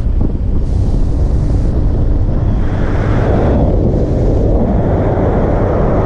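Heavy wind buffeting on the microphone of a camera riding along a road at speed: a loud, dense rumble that swells and eases every couple of seconds, with road and vehicle noise underneath.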